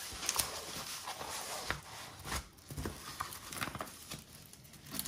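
Large diamond painting canvas with its plastic cover film crinkling and rustling as it is handled and pressed flat by hand, with several short sharp crackles.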